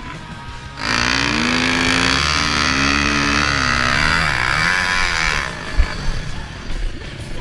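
KTM enduro motorcycle engine under hard throttle, starting about a second in, its pitch rising and falling with the revs and breaking once, then dropping off; a thump follows just after. Music plays underneath.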